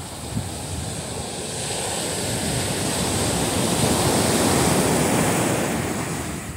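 Surf breaking on a beach: the wash of a wave swells to its loudest about four to five seconds in, then falls back.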